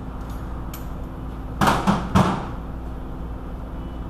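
Three quick knocks from hand-tool work on a car's outer tie rod end, about two seconds in, over a steady low hum.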